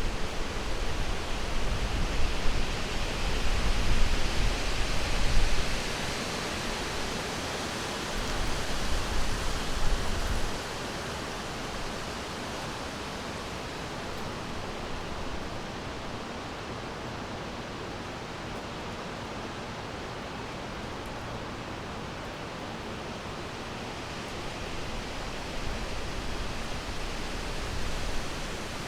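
Rushing water, a steady hiss of flowing water. It has a deep rumble and is louder for about the first ten seconds, then settles quieter and even.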